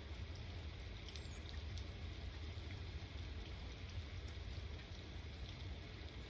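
Steady rain with scattered faint drip ticks over a constant low rumble.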